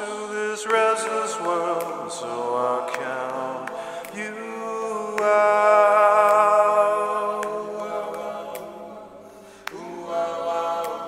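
Layered sung voices holding long, slightly wavering choral notes in a dark, chant-like vocal score. The voices thin out and fade, then a new held chord comes in near the end.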